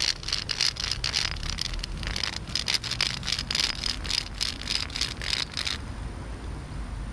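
Gee-haw whammy diddle, a wooden notched-stick propeller toy: a wooden rubbing stick scraped rapidly back and forth over the notches, a rasping scrape of several strokes a second that stops about six seconds in. The friction on the notches is what sets the little propeller spinning.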